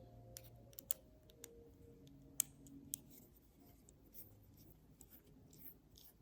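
Small, sharp, irregular clicks and taps from a vintage Casio digital watch being handled and turned over on a work surface, about seven distinct ticks spread unevenly.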